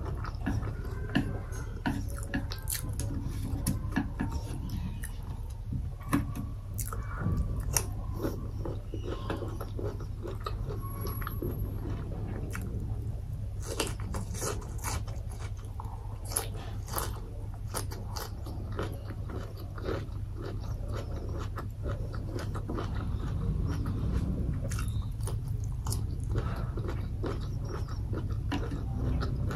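Close-miked mouth sounds of eating: bites and chewing with wet clicks and some crunch, over a low steady hum.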